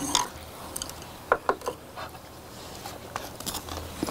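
Scattered light clicks of chopsticks against plates and bowls as pieces of braised short rib are picked up, with a little biting and chewing.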